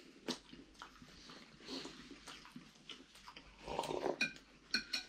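Quiet eating sounds at the table: chewing and scattered clicks of cutlery against a plate, with a brief louder patch about four seconds in and a couple of ringing clinks near the end.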